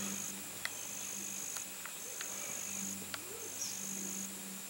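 Insects trilling in a high, steady tone, in repeated phrases about a second long with short gaps. A few faint clicks sound now and then.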